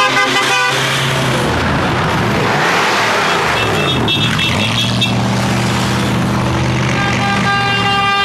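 Car horns honking over running engines as a group of cars sets off. A short horn blast comes at the start, a few quick high toots about four seconds in, and a long held horn begins about seven seconds in.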